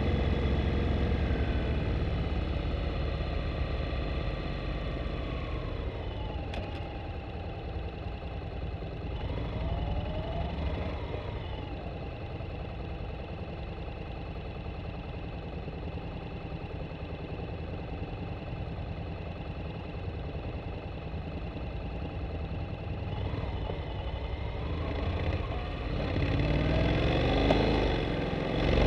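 Honda Integra NC750D's 745 cc parallel-twin engine running at low revs on a downhill run, heard through a microphone under the seat; the note eases down and holds low and steady, then rises as the throttle opens near the end.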